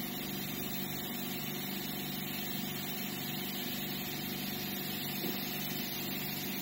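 Steady mechanical hum with a few constant tones, holding even throughout.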